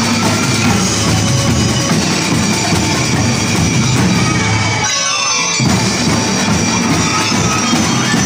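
Drum and lyre corps playing, with marching bass and snare drums carrying the beat. The drumming drops out briefly about five seconds in, then resumes.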